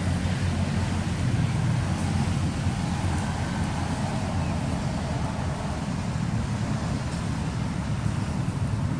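Steady low rumbling background noise, even throughout.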